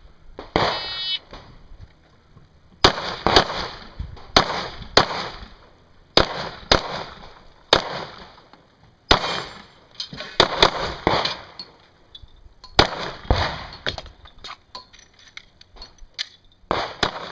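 A shot timer's start beep, then a pistol fired in quick pairs and short strings, with brief pauses between groups of shots.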